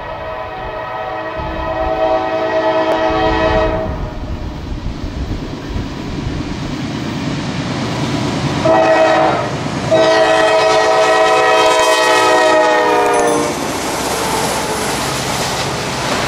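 Norfolk Southern diesel freight locomotive's multi-chime air horn sounding a long blast, then a short one and another long one. After the horn stops, the locomotives pass close by with a loud rumble and wheel clatter on the rails.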